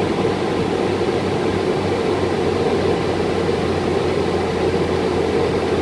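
Airliner cabin noise during the climb-out after takeoff: a steady drone of engines and rushing air, with a low hum underneath.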